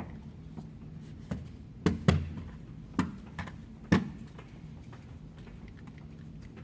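A run of about seven sharp bangs or knocks over four seconds, unevenly spaced, two of them close together about two seconds in, each with a short ring-out, over a steady low hum.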